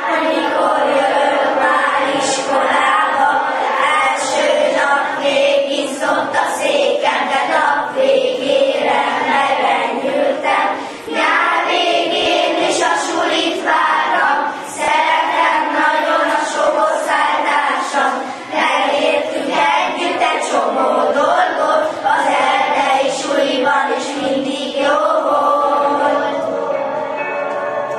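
A children's choir singing a song together in a hall, with no break.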